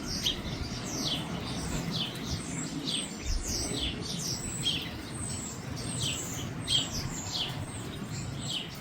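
Many small songbirds chirping around garden feeders: short, quick, downward-sliding chirps, several a second, overlapping throughout.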